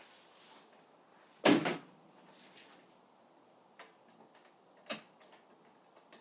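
Handling of the table saw's riving knife and blade guard assembly: one loud clunk about a second and a half in, followed by several light clicks as the parts are fitted into place.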